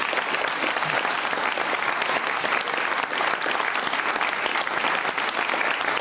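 Studio audience applauding steadily, a welcome for a guest just introduced.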